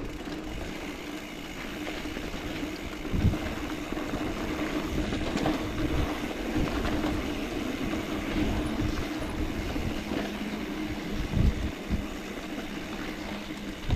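Mountain bike rolling along a dirt trail: a steady rumble and rattle from the tyres and bike, with a few sharp thumps over bumps.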